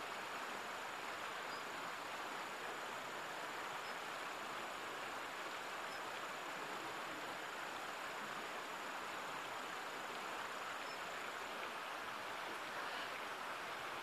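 Steady rushing of a nearby stream, an even hiss with no breaks. A faint thin high-pitched tone sounds along with it and stops a few seconds before the end.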